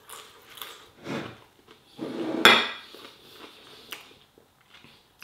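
Cutlery clinking and scraping on a dinner plate as food is picked at, with one sharper clatter about halfway through and a lighter click a little later.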